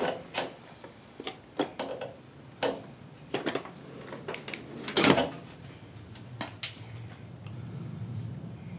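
Scattered clicks, knocks and clatter of tools and objects being handled while a flashlight is fetched, with one louder knock about five seconds in. A low steady hum comes up near the end.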